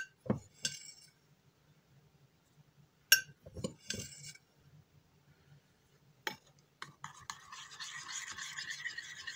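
A metal spoon clinks several times against a glass jar and a bowl while powdered skim milk is scooped into water. About seven seconds in, the spoon starts stirring the powder into the water in the bowl, a steady scraping swish.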